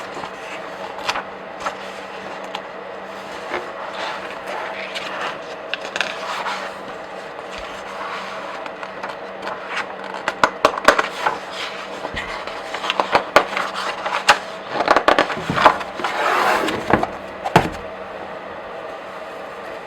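Comic book pages being flipped by hand, the paper crackling and swishing. Occasional single page turns at first, then, about halfway through, a run of quicker, louder flips that stops shortly before the end.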